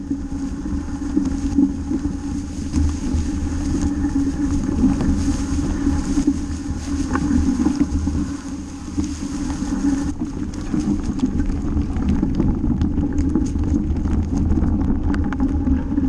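Rumble of a mountain bike rolling fast down a trail of dry fallen leaves, mixed with wind buffeting the camera's microphone. From about ten seconds in, scattered crackles of leaves and small rattles come through.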